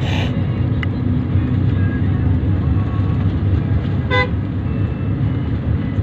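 Steady low road and engine rumble of a vehicle driving along a highway, heard from on board, with a brief rush of noise at the very start and one short horn toot about four seconds in.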